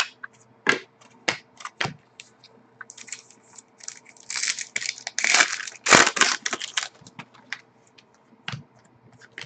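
Crinkling and tearing of a foil trading-card pack wrapper, mostly in the middle of the stretch, with scattered clicks and taps from cards being handled and one sharp knock.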